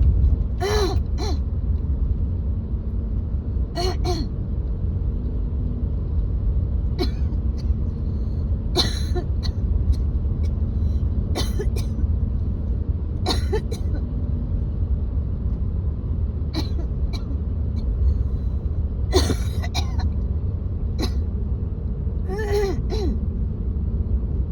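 A woman coughing and clearing her throat in short bursts every one to three seconds, a few of them voiced, as she tries to bring up phlegm stuck in her throat. Behind it is the steady low road rumble inside a moving car.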